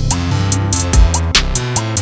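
Background music: a track with a beat, a low bass line and pitched notes changing every fraction of a second.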